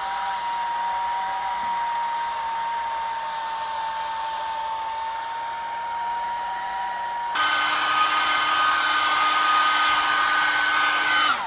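Hair dryer blowing steadily with a motor whine, heating a Screenmend patch to set its heat-activated adhesive. About seven seconds in it switches to a louder, higher-pitched setting, and near the end it is switched off, its whine falling away.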